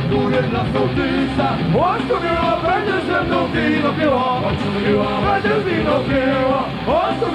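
Live rock band playing on stage, with a man's voice over the music. Two quick upward-sliding notes, about two seconds in and near the end.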